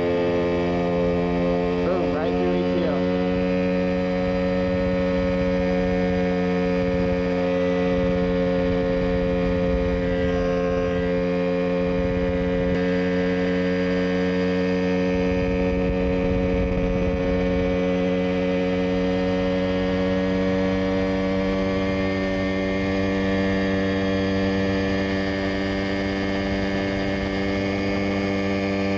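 Mosquito Air ultralight helicopter in flight, heard from on board: its engine and rotor run at a steady, even pitch, a constant multi-toned drone.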